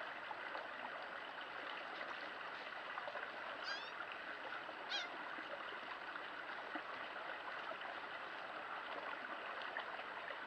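Steady rush of a flowing stream, with two short, high bird calls a little before halfway.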